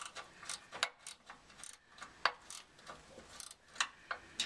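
Ratchet spanner clicking in short, irregular strokes, two or three clicks a second, as a compressor mounting bolt is worked loose.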